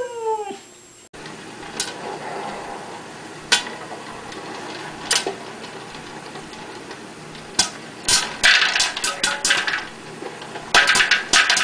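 Popcorn popping in an electric popcorn popper under a clear plastic dome: a few single pops at first, then quick runs of pops as the kernels get going, over the machine's steady hiss. In the first second a husky's howled 'I love you' trails off.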